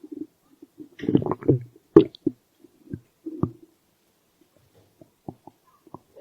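Human stomach growling on an empty stomach: a run of gurgling rumbles about a second in, then scattered short gurgles and pops.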